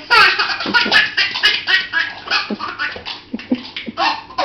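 A baby laughing in rapid, choppy bursts, with a few short sharp clicks mixed in.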